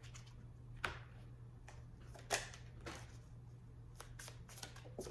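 Tarot cards being handled: a few faint, sharp clicks and snaps spread across the seconds, over a steady low hum.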